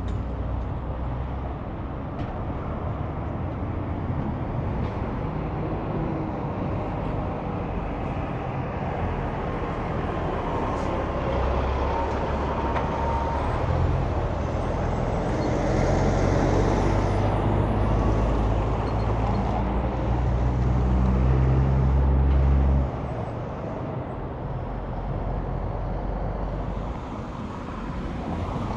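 Heavy semi-trucks running past on a highway: steady engine drone and tyre noise. It swells to its loudest in the middle, where a close pass adds a rushing hiss, then drops suddenly about two-thirds of the way in.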